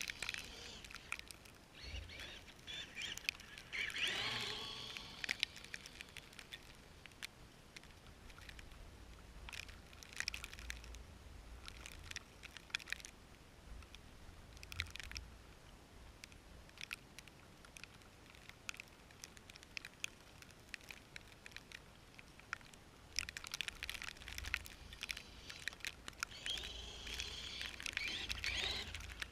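Traxxas Summit RC truck working through snow: scattered crackling and crunching, with a louder burst about four seconds in and again near the end, over a low rumble.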